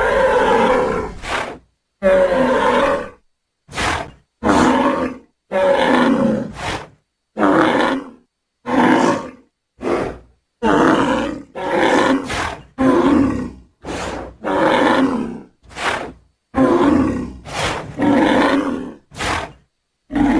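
A string of about fifteen growling, bull-like roars, each lasting about a second, cut apart by dead silence between them.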